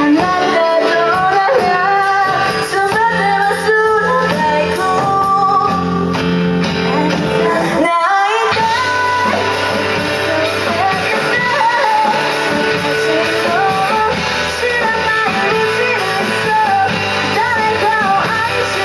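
Rock band playing a song live, with a singer over electric guitar, bass and drums. The low end drops out briefly about eight seconds in.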